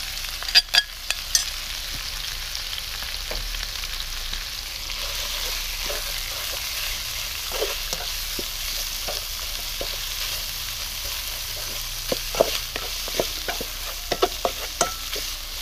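Chopped garlic, chillies and minced meat sizzling in hot oil in a coated wok, with a steady hiss. A spatula clacks and scrapes against the pan a few times in the first second or so, then now and then, and more often near the end.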